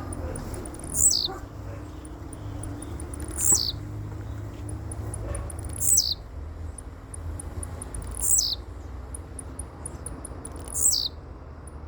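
A bird calling: a high, sharply falling whistle repeated five times, about every two and a half seconds. Between the calls there is fast, faint, high ticking like an insect, over a steady low rumble.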